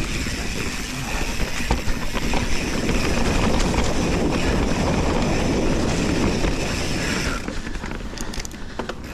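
Mountain bike riding down a dirt trail: steady tyre noise with many small rattles and clicks from the bike, easing off near the end.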